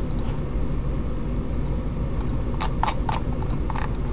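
A handful of quick computer mouse clicks in the second half, over a steady low hum of microphone background noise.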